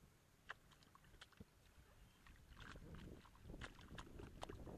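Faint wet squelching and dabbing of a hand smoothing mud and water, with scattered small sharp clicks; it grows busier and a little louder about halfway through.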